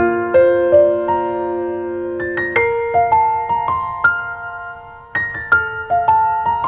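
Background piano music: a slow melody of struck notes that ring on and fade, with a brief lull about five seconds in before the next phrase.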